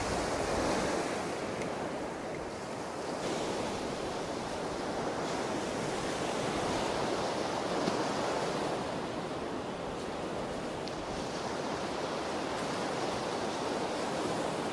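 Atlantic surf breaking on a sandy beach: a steady wash of waves that swells and eases gently.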